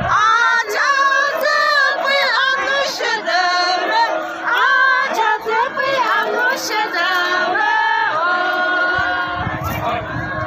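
A group of women singing a folk song together in chorus, their voices rising and falling.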